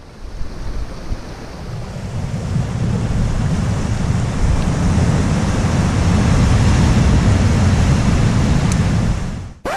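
Ocean surf washing ashore with wind rumbling on the microphone, swelling over the first few seconds and then holding loud. It cuts off abruptly near the end.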